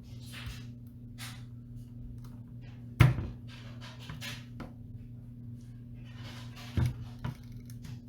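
Corsair Vengeance RGB Pro DDR4 RAM sticks being pressed into the motherboard's DIMM slots and clicking as they latch. There is one loud click about three seconds in and two smaller clicks near the end, with light handling rustles over a steady low hum.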